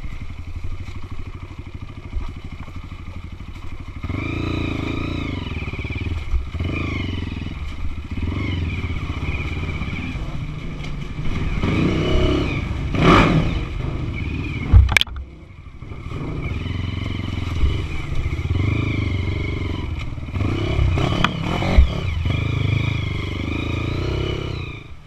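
Honda CRF 240 trail bike's single-cylinder four-stroke engine pulling under load, revs rising and falling with the throttle. It is quieter for the first few seconds, loudest a little past the middle, then gives a sharp click, dips briefly, and picks up again.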